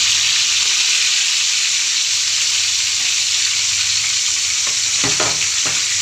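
Whole threadfin bream (bisugo) sizzling in hot oil in a frying pan: a loud, steady frying hiss, with a few short knocks about five seconds in.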